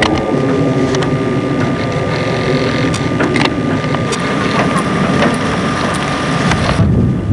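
Wind buffeting the microphone over a steady low engine rumble, with a thin steady whine and a few clicks. The higher hiss cuts off abruptly near the end.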